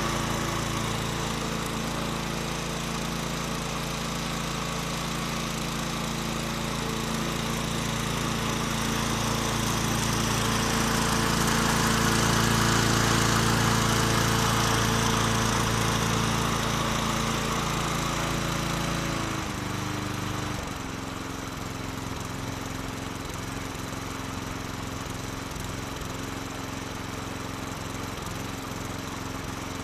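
Bolens petrol walk-behind mulching lawn mower running steadily while cutting grass. About two-thirds through, its engine note steps down a little and grows quieter.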